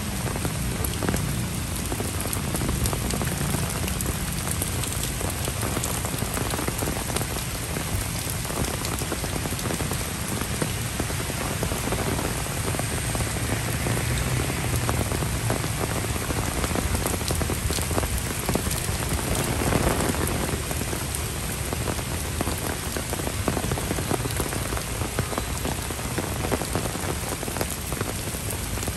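Heavy rain falling steadily on paved paths, puddles, grass and leaves, a dense even hiss with scattered close drop hits.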